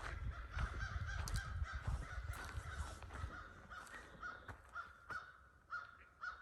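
A bird giving a run of short repeated calls that come closer together at first and then about two a second. Over the first few seconds there are footsteps on the trail.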